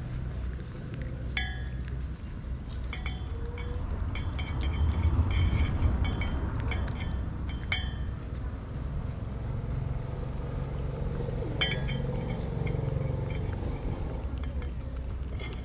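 Steady low rumble of road traffic, swelling once for a few seconds as a vehicle passes. Scattered light clinks and clicks come on top, in small clusters.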